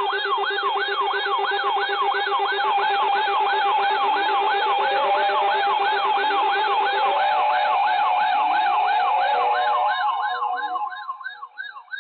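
Electronic siren-style emergency alert tone: a fast yelp that sweeps down in pitch about three times a second, over steady electronic tones. It fades out near the end.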